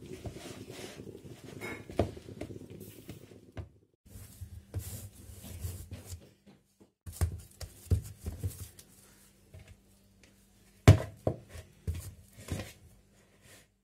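A hand mixing dry flour and fine semolina in a plastic bowl: rubbing and scraping of the powder against the bowl. From about seven seconds in there are separate knocks and thuds as the bowl is handled, the sharpest one about eleven seconds in.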